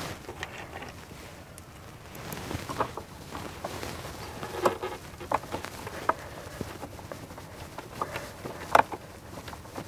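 Scattered small clicks and taps of a T20 Torx driver and screws as a mass airflow sensor is screwed by hand into the air intake tube, irregular and the loudest near the end.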